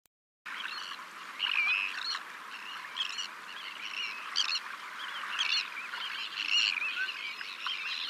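A chorus of songbirds chirping and warbling, many high calls overlapping, starting about half a second in.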